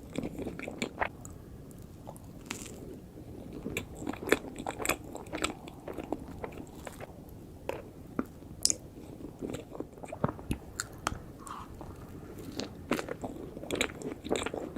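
Close-miked eating of profiteroles: chewing with many small, irregular mouth clicks.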